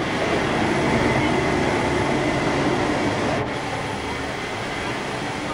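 Steady, loud rushing roar of a jet aircraft's machinery running on the ramp during boarding, with no clear rhythm.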